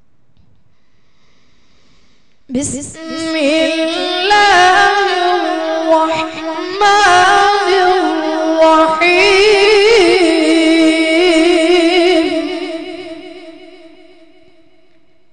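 A boy reciting the Quran in the melodic tajweed style into a microphone. About two and a half seconds in he begins one long ornamented phrase with a high, wavering pitch, which he holds and which fades out near the end.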